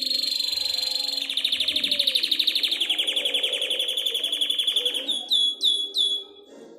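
Canary singing its breeding-season song: a long, rapid trill, then three quick falling notes near the end.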